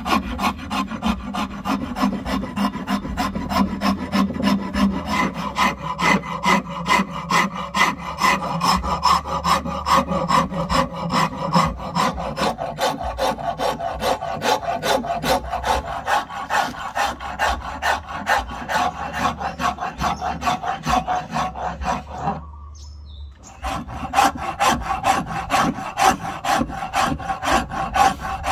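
Wood being hand-filed, a rasp or file working padauk in quick, even back-and-forth strokes at about four a second, with a pause of about a second three-quarters of the way through.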